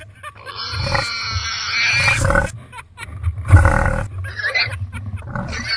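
Mountain bike riding a downhill trail at speed: wind blasting the microphone in uneven gusts, mixed with the clatter of the bike over rough ground.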